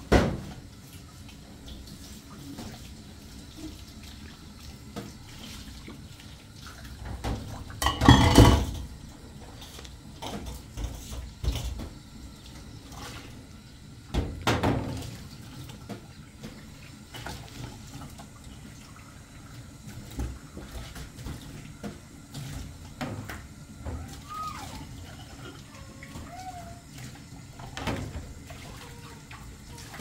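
Dishes being washed under a running tap in a steel sink: water splashing, with clinks and knocks of plates and glasses. The loudest clatter comes about eight seconds in, and another about fourteen seconds in.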